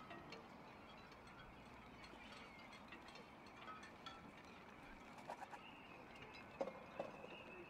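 Near silence, with faint scattered ticks and two slightly louder clicks near the end.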